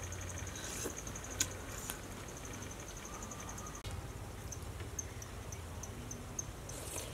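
Insects chirping in a high, rapid pulsing trill that changes, about four seconds in, to separate chirps about two a second, over a low steady hum. A single sharp click about a second and a half in.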